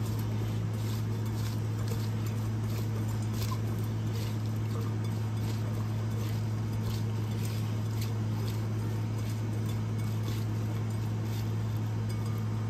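Celery and cucumber sticks being tossed and rubbed with salt by hand in a glass bowl: light, irregular clicks and rustles about once or twice a second. A steady low hum runs underneath and is the loudest sound.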